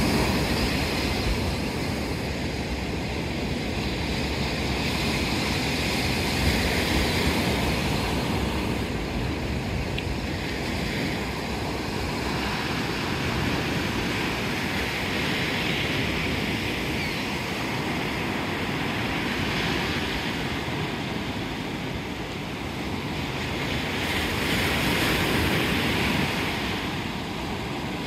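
Ocean surf breaking and washing up a sandy beach, a steady wash that swells and fades every few seconds as each wave comes in.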